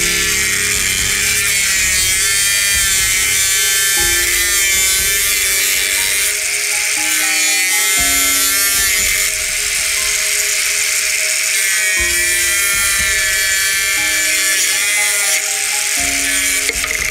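Angle grinder cutting through a grey PVC drain pipe, a steady high hiss with a whine that wavers in pitch as the disc bites, over background music.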